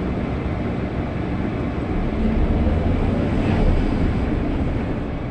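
Sany SY215 excavator's diesel engine running steadily under work. It grows louder for a couple of seconds in the middle, then begins to ease off near the end.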